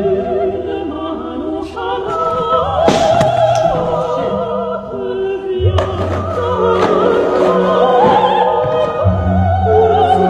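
Opera music: a singing voice holding long notes with a wide vibrato over steady low accompaniment.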